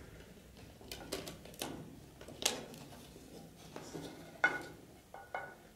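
Light plastic clicks and taps of a Blu-ray disc being handled and pressed onto the hub of a clear plastic disc tray in a cardboard digipak. A quick run of clicks comes about a second in, a sharper snap at about two and a half seconds, and the loudest click at about four and a half seconds, some with a short plastic ring.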